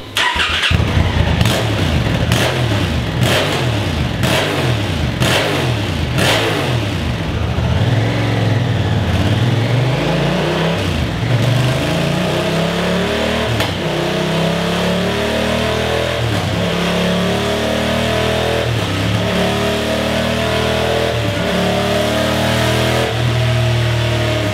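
Honda CRF1000L Africa Twin's 998 cc parallel-twin engine with its stock (OEM) exhaust, revved in a run of quick blips at first. After that the revs climb and fall again and again.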